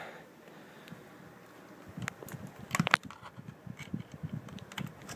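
Handling noise: after a quiet start, a few sharp clicks and soft knocks, the loudest about three seconds in, with low rustling as a hand works at the Raspberry Pi's plastic case to switch it on.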